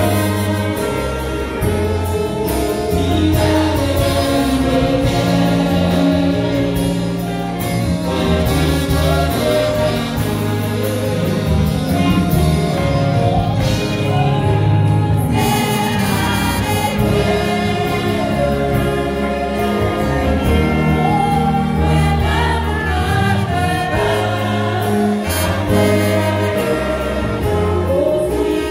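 Church worship team of women singing a Haitian Creole worship song together into microphones, amplified through the sound system, over low instrumental backing notes.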